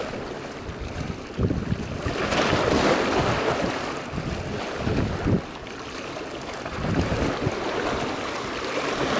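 Wind buffeting the microphone over small waves washing against shoreline rocks, with a swell of surf hiss about two to three seconds in.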